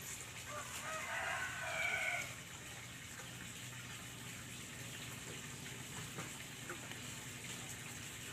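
A rooster crows once, a pitched call of about two seconds near the start. After it only a faint, steady low hum remains.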